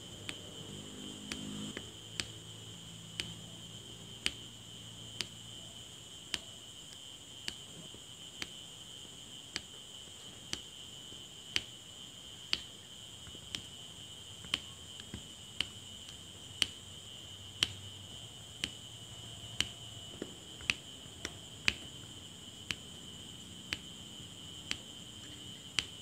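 Diamond painting pen pressing round resin drills onto the sticky canvas one at a time, each placement a sharp little click, about one a second. A faint steady high-pitched whine runs underneath.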